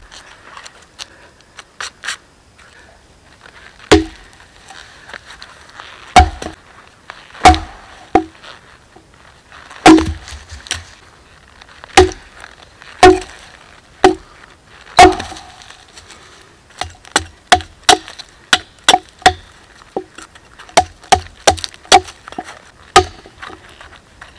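Hatchet chopping and splitting a round of resin-rich pine fatwood on a wooden board: about eight heavy, spaced blows, then a quicker run of lighter strikes, about two a second.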